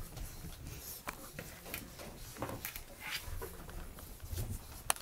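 Bullmastiff puppies scuffling about at play: scattered taps and clicks of paws on a wooden floor with soft low thumps, and one sharp click near the end.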